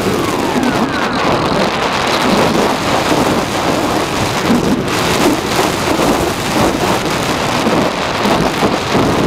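Wind rushing and buffeting over the onboard camera of a Swift II model flying wing as it glides with its motor cut, a loud, steady hiss with no motor tone.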